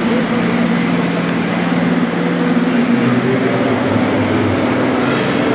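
Radio-controlled model tractors running as they work the soil: a steady engine-like drone with several pitches, the lowest stepping down about three seconds in.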